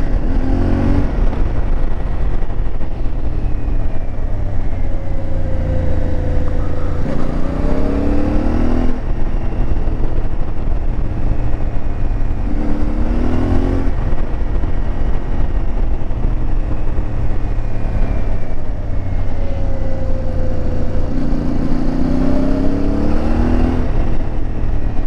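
CFMoto 450MT's parallel-twin engine pulling hard about four times, each rise in revs ending abruptly, with the revs sinking slowly in between, over steady wind noise.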